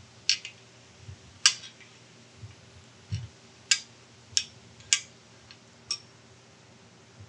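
Sharp metallic clicks and taps as small hardened steel parts are handled and set down on a bench, about six over several seconds, with a few soft low bumps between them.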